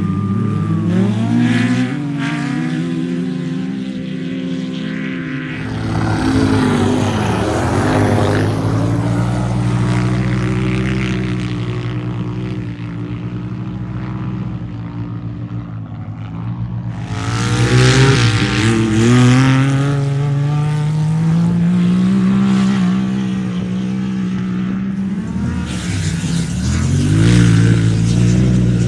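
Off-road race vehicles' engines revving and passing one after another, their pitch rising and falling. The loudest passes come about 6 s in, from about 17 to 20 s in, and again near the end.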